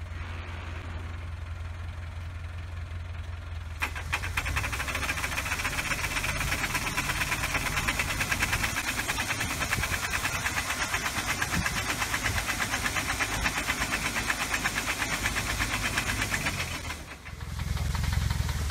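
Tractor engine running steadily. About four seconds in, the tractor-driven rope shaker starts shaking the sour cherry tree, adding a loud, fast, even rattle and rustle of shaking branches as cherries fall onto the tarp. Near the end the sound dips briefly and gives way to a lower engine hum.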